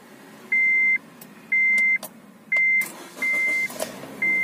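Honda Mobilio's dashboard warning chime beeping about once a second, each beep half a second long. About three seconds in the starter cranks and the four-cylinder engine catches, settling into a fast idle of around 2,000 rpm.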